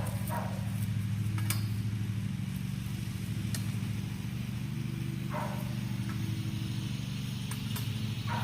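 A steady low hum of an engine or motor running throughout, with a few light clicks on top.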